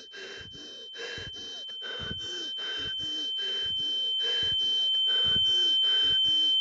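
Rapid, shallow panting breaths, about three a second, under a high-pitched ringing tone that grows steadily louder: sound design evoking the hyperventilation and rising tension of a panic attack.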